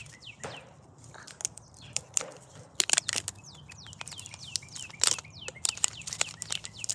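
Crinkly plastic wrapping on a Mini Brands capsule being torn and crumpled by hand, in an irregular run of sharp crackles that are loudest about three and five seconds in. Birds chirp in the background with a repeated falling call.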